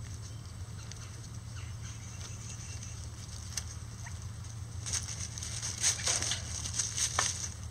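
Chickens scuffing and scratching in dry leaf litter: a single click, then from about five seconds in a quick run of louder rustles and scuffs, over a steady low hum.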